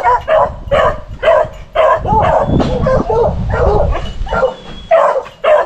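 Beagle hounds barking in short, repeated yelps, about two a second.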